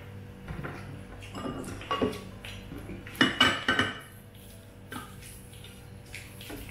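Clinks and clatter of tableware as food is picked from glass baking dishes and plates by hand, in scattered knocks with short ringing. The loudest burst of clinks comes about three seconds in.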